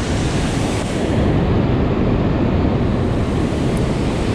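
Wind buffeting the microphone: a loud, steady rushing noise with a jittery low rumble, its upper hiss dulling for a couple of seconds in the middle.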